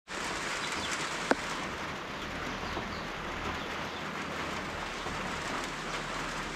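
Steady rain falling, a dense even patter, with one sharp tap a little over a second in.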